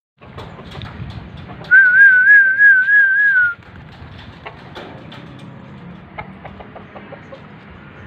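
A loud whistle held for about two seconds with an even, wavering warble, starting a little under two seconds in, over pigeons cooing, with scattered small clicks later on.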